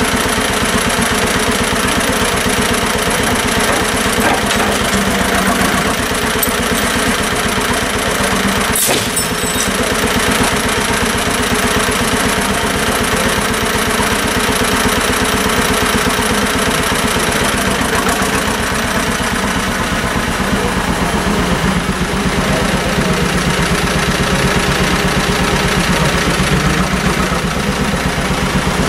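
1949 John Deere BW tractor's two-cylinder engine running steadily while working a front loader. A single sharp knock about nine seconds in.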